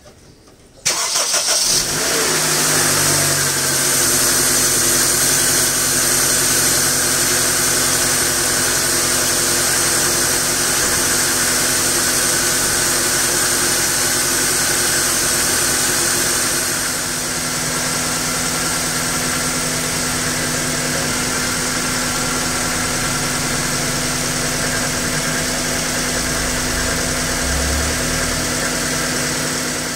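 Honda Accord engine starting about a second in and then idling steadily, a little quieter from about halfway. The idle is fairly smooth, with the earlier valve tick gone after new gaskets and an adjustment of excessive valve clearance.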